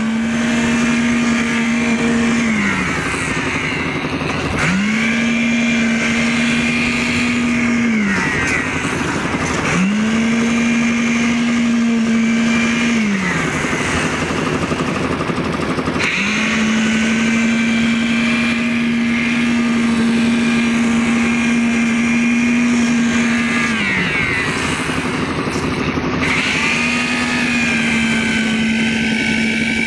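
Hand-held electric concrete needle vibrator buzzing in five bursts of a few seconds each, spinning up at each start and winding down at each stop, the longest about eight seconds. Under it a concrete mixer's engine runs steadily.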